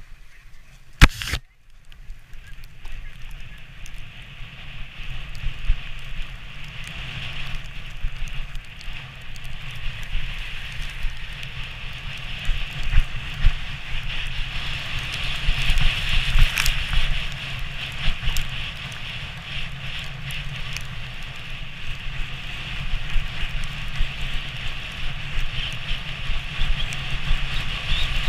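Wooden sledge runners hissing and scraping over packed snow at speed, with a low rumble and scattered small ticks and crackles from the snow. A sharp knock about a second in, and the hiss grows louder in the middle.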